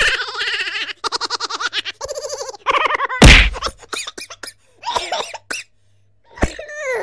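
Comic sound effects: rasping, buzzy noises in short bursts, a loud whack about three seconds in, then a few falling glides near the end.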